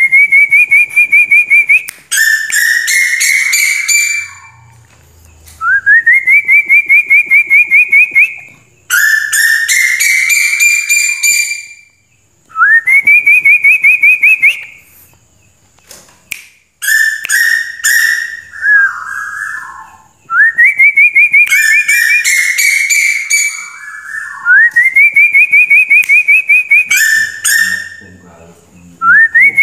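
Female tuwu bird's lure call, repeated about every four seconds: each call is a rapid pulsing trill that rises in pitch and then holds steady, followed by a short harsher burst.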